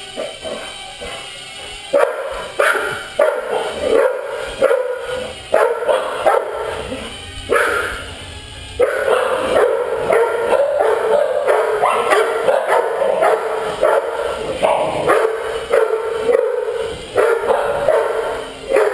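Dogs barking over and over, roughly once a second, as they chase a Hubsan X4 micro quadcopter. Under the barks the quadcopter's small motors keep up a steady buzz that drops out briefly about halfway through.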